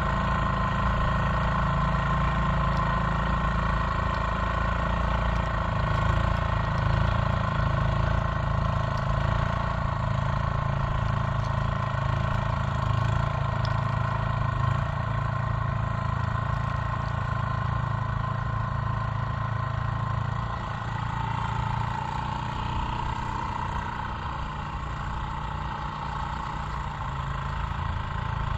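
The single-cylinder 3.5 hp Briggs & Stratton engine of a 1979 Gilson-built Montgomery Ward snowblower runs steadily. About two-thirds of the way through it becomes a little quieter and its tone shifts.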